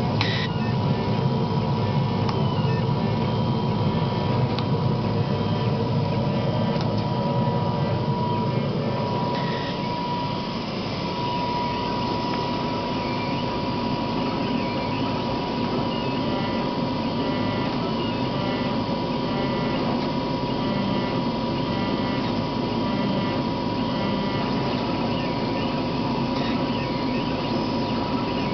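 CO2 laser cutter running a cut: a steady whine near 1 kHz over a low machine hum, with faint intermittent chirps from the moving head. This is the strange noise during cutting that the owner is worried about.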